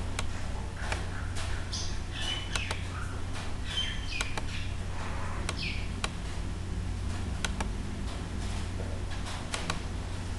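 Computer mouse clicks as drop-down list entries are picked, over a steady low electrical hum. A few short, high, falling chirps come about two, four and five and a half seconds in.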